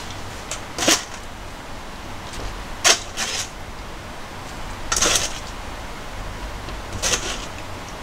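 Boiled chicken pieces being lifted from a metal colander and set into a bowl. There is a short scuffling handling noise about every two seconds, five in all.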